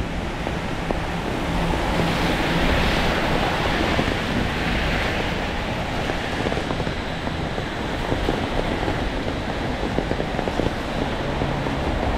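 Rain and traffic on a wet city street: a steady hiss of rain and tyres on wet pavement, swelling for a few seconds near the start as a vehicle passes.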